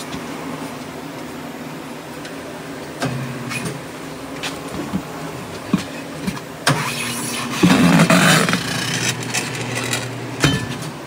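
A steel bar of a manual tire changer clanking against a steel trailer wheel while the tire bead is worked over the rim. A few sharp metal knocks, then a louder stretch of rubber scraping and grinding about seven to nine seconds in, and one more knock near the end.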